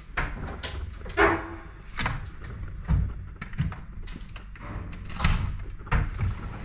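Sliding glass balcony door being handled and slid open: a string of irregular clicks, knocks and thumps from the latch and frame, with a low rumble along its track.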